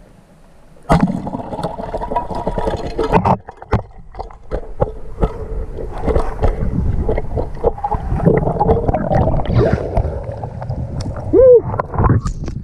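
Water churning and splashing close to the microphone, starting suddenly about a second in, with many short knocks, as a speared snapper struggles and is brought to the surface.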